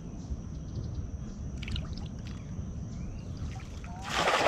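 Cast net (atarraya) landing on shallow estuary water: a splash of about half a second near the end, the loudest sound. Before it, only faint low background noise.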